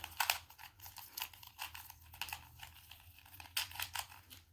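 Plastic 2×2 speed cube being turned quickly by hand while being solved: a fast, irregular run of small clicks and clacks that thins out near the end.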